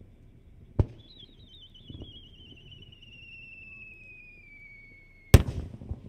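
A firework shell is fired with a sharp crack about a second in, then whistles as it climbs: a warbling whistle that falls steadily in pitch for about four seconds. It cuts off when the shell bursts with a loud bang near the end.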